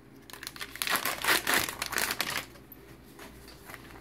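Disposable absorbent underpads crinkling and rustling as they are handled and laid down, dying away about halfway through to faint rustles.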